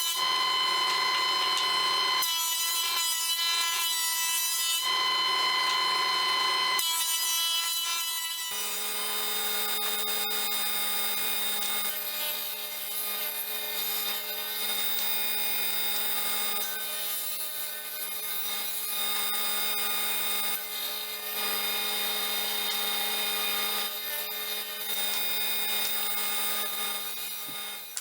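Power tools working wood: several short abrupt segments of a high-pitched whining tool, then from about eight seconds in a single motor running steadily.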